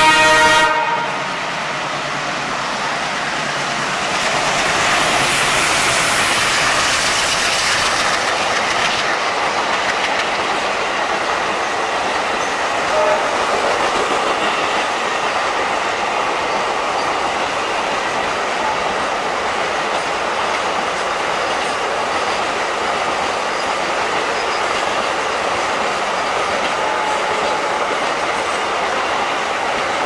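A WDG3A diesel locomotive's horn cuts off just under a second in. The locomotive then passes loudly over the next few seconds, followed by a long train of container wagons rolling by with a steady rumble and wheel clatter over the rail joints.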